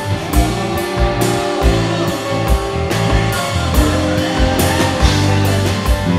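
Live blues-rock band playing: electric guitar, electric bass and drum kit, with the kick drum keeping a steady beat and cymbals crashing.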